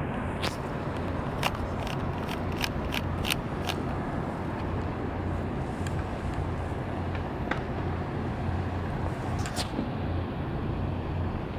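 Steady low rumble of distant engines, with a run of sharp clicks in the first few seconds and two more clicks later on.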